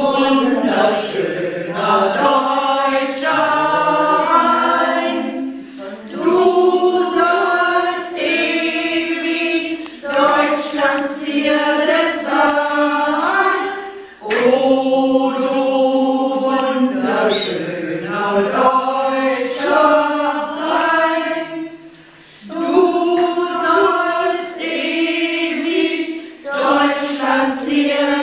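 A group of mostly elderly voices singing a German song about the Rhine together, unaccompanied, led by a woman. The sung phrases break briefly three times for breath.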